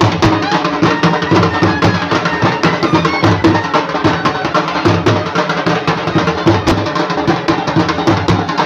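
Loud music with drums and hand percussion keeping a steady beat.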